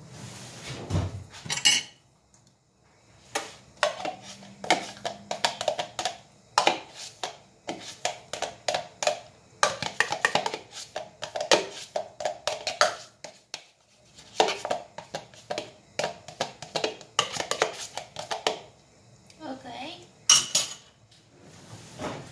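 Cutlery clinking and scraping against dishes in a quick, irregular run of clicks with short pauses, ending in one sharp clack.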